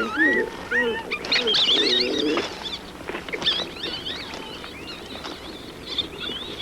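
Many high, wavering animal calls overlapping, loudest for the first two and a half seconds, then fainter chirping calls carrying on.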